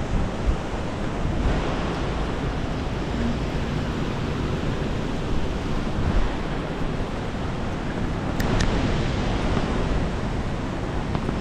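Steady rushing roar of falling water from a mountain waterfall, an even noise with no breaks.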